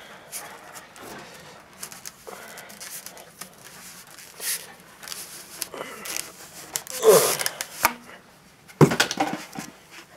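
Rolled paper posters being worked out of a cardboard mailing tube: irregular scraping and rustling of paper and cardboard, with louder scrapes a little past halfway and again near the end.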